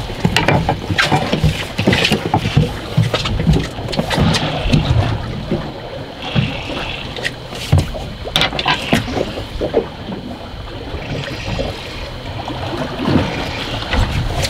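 Waves slapping and splashing against the hull of a drifting fishing boat, with wind on the microphone and irregular knocks and clatter on deck throughout.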